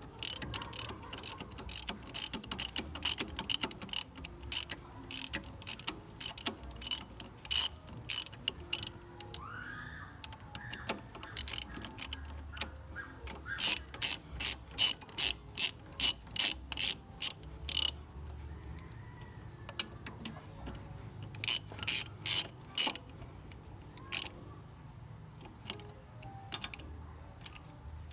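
Ratchet wrench clicking in runs of quick back-and-forth strokes, with short pauses between runs, as bolts are tightened to refit engine parts.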